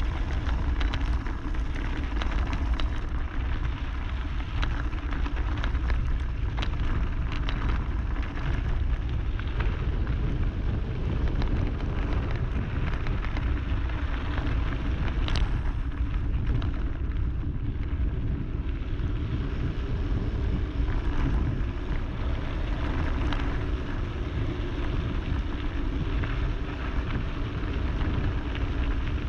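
Mountain bike tyres rolling fast over loose gravel on a descent, with steady wind rumble on the bike-mounted action camera's microphone and scattered clicks and rattles from stones and the bike.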